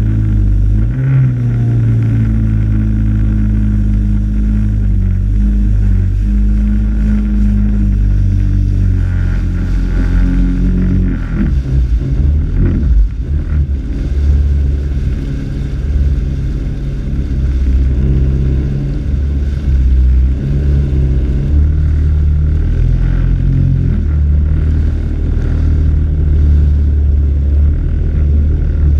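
Jet ski engine running steadily, its pitch shifting a few times as the throttle changes, over a heavy low rumble.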